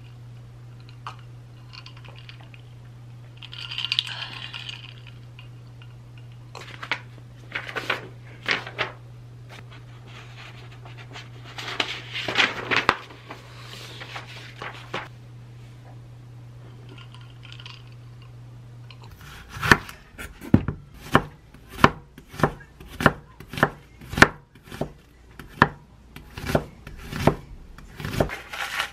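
Quiet rustling of paper pages and desk handling over a steady low hum, then a kitchen knife slicing an onion on a wooden cutting board: a steady run of sharp cuts, about two a second, starting about two-thirds of the way in.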